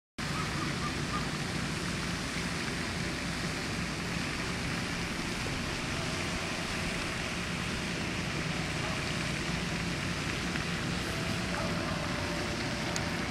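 Steady outdoor background rush picked up by a camcorder microphone, with no distinct events in it. It cuts in abruptly from silence at the very start.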